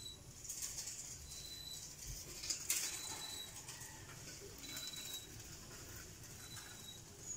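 Quiet outdoor ambience with a faint high chirp repeating about every second and a half, and a brief rustle about two and a half seconds in.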